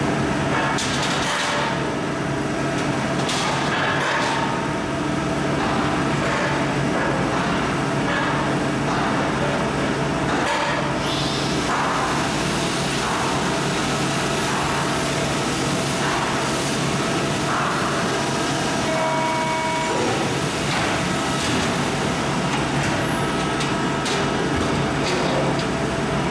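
Maru Kikai 300-ton, 4 m press brake running as it bends heavy steel plate: a steady machine hum with scattered clanks of the plate against the tooling and bed. A short whine comes about three-quarters of the way through.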